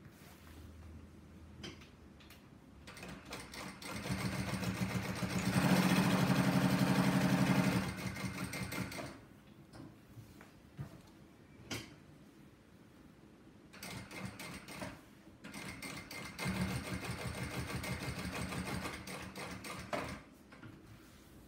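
Jack 6380BC-Q direct-drive walking foot sewing machine stitching leather: it speeds up to a fast, steady stitch, slows and stops, then after a pause with a few clicks sews a second, shorter run.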